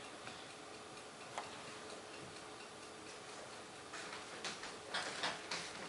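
Quiet room tone with a faint steady hum and a single click about a second and a half in. From about four seconds in come irregular footsteps and rustling, growing louder as people approach across a wooden floor.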